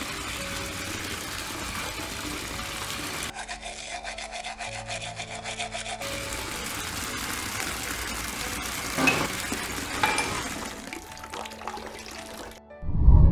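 Tap water running into a ceramic washbasin, with toothbrush scrubbing strokes over background music. A loud low thump near the end.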